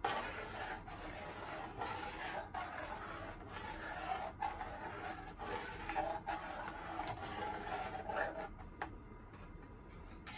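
Long metal spatula scraping around the bottom of an aluminium pot while stirring simmering carrot milk pudding, in steady strokes about once a second.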